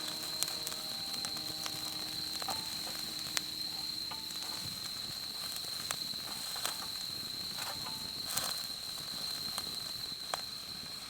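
A steady, high-pitched insect call, like a cricket's, with scattered sharp clicks over it. Faint held music notes fade out about four seconds in.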